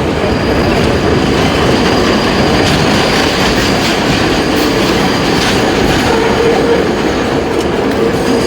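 R32 subway car running at speed, heard from inside: a steady loud rumble and clatter of steel wheels on the rails, with a steady hum and a few scattered clicks.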